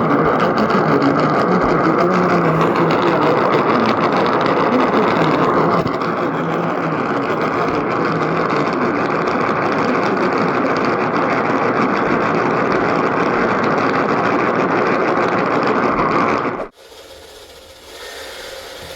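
AM radio receiver tuned to 890 kHz with a weak signal, giving a loud, steady hiss of static. The static cuts off suddenly near the end.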